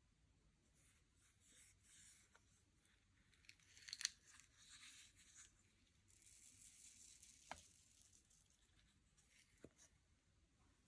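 Faint sticky crackling and tearing of slime being stretched and pulled apart, in patches, with a sharp click about four seconds in and two softer clicks later.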